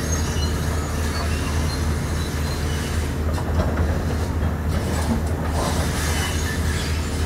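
Heavy diesel demolition machinery running steadily, a low engine drone from the tracked excavator and the water truck, with scattered clatter of debris as the excavator works the station roof.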